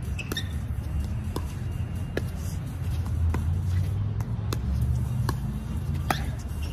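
Pickleball rally: paddles striking the hollow plastic ball in quick exchanges at the net, a sharp pop about once a second, over a steady low rumble.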